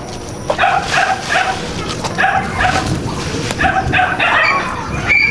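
A dog yipping and whining in quick runs of short, high calls, several a second.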